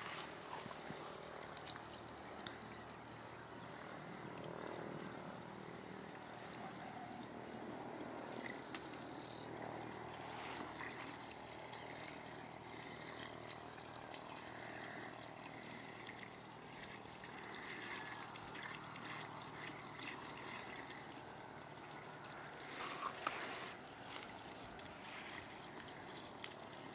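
Water trickling and pouring from a plastic bucket into a portable water pump's priming port, filling the pump casing before it is started. A brief clatter comes about three-quarters of the way through.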